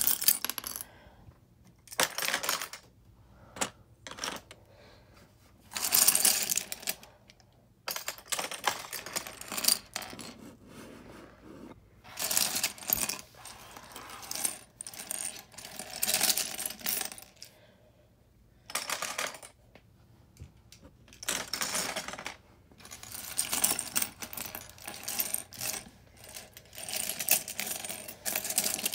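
Loose LEGO plastic pieces rattling and clattering as they are handled and sorted, in repeated bursts of a second or two with short pauses between.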